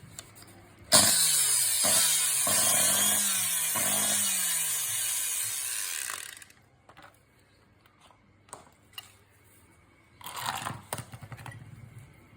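Electric angle grinder starting abruptly about a second in and running for about five seconds with a rough snoring noise ('ngorok') that marks it as faulty. It then cuts off, and a shorter burst of noise follows near the end.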